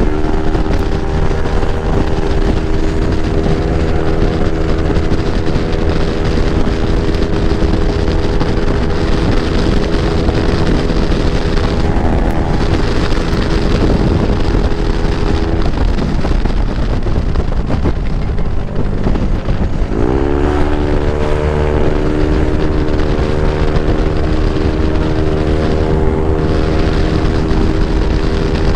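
Yamaha NMAX scooter's single-cylinder engine, bored to 195cc, running at steady cruising revs with wind rushing over the microphone. Just past halfway the engine note drops away for a few seconds. Then it climbs sharply as the throttle opens again and holds at a steady pitch.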